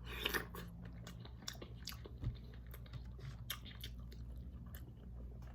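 A person chewing seafood in a garlic sauce close to the microphone, with many short, irregular mouth clicks.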